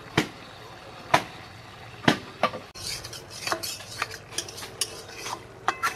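Metal spatula stirring fish curry in a metal kadai, knocking against the pot about once a second at first, then scraping and clinking more quickly, some strikes ringing briefly. The simmering gravy sizzles faintly underneath.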